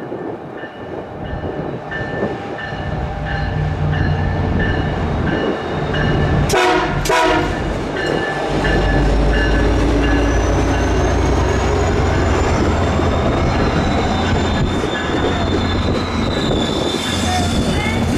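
UTA FrontRunner MP36PH-3C diesel locomotive, with its EMD 16-cylinder two-stroke engine, arriving at low speed. A bell rings steadily, then come two short horn blasts about six and seven seconds in. After that the engine's low drone grows loud as the locomotive passes close, with a high whine above it.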